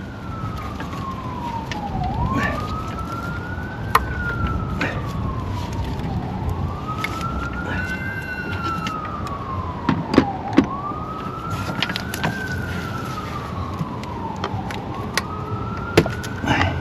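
An emergency-vehicle siren wailing, its pitch sweeping slowly up and down about every four seconds. A few sharp clicks and knocks sound over it.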